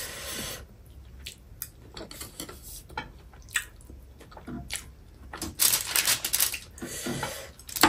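Metal chopsticks tapping and scraping on a foil-lined tray while picking up small bits of noodles, with close-up chewing. Scattered light clicks, and a louder rustling scrape about five and a half seconds in.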